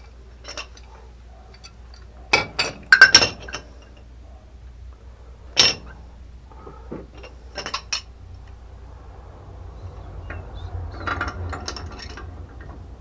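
Metal wrenches clinking and knocking against a tight copper pipe union and its fittings while it is being worked loose. Scattered sharp strikes, the loudest about three seconds in, with a run of lighter clinks near the end.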